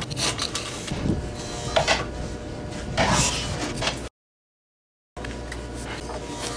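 Japanese hand plane (kanna) shaving the end grain of a timber block in a few short, scraping strokes. The sound breaks off into about a second of complete silence around four seconds in, then light handling noise follows.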